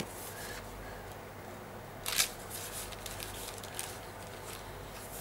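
Paper rustling as the pages of a handmade paper journal are handled and turned, with a few soft clicks and one louder rustle about two seconds in.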